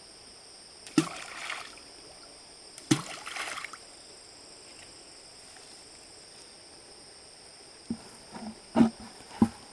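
Two sharp splashes in water about two seconds apart, each trailing off in spray, then several short knocks and thumps near the end. A steady high insect whine runs underneath.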